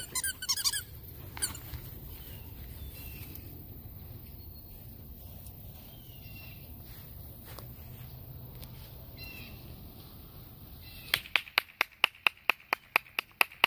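Quiet outdoor background with a few faint bird chirps. About eleven seconds in, a quick, even run of sharp clicks, about six a second, lasts for two to three seconds.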